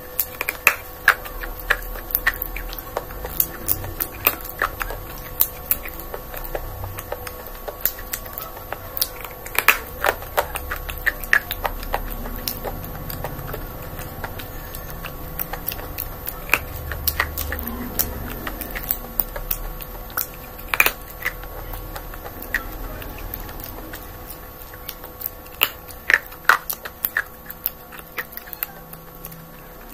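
Close-miked eating sounds: a spoon clicking against teeth and lips, with chewing and mouth clicks at irregular intervals over a steady faint hum.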